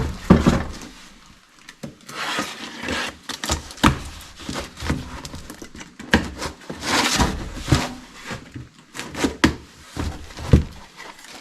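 A packaging box being opened and its contents handled: a string of short scrapes, rustles and knocks.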